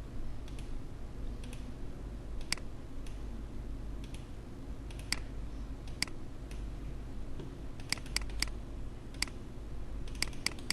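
Scattered clicks from working a computer, about a dozen sharp single clicks at irregular spacing, some close together, over a low steady hum.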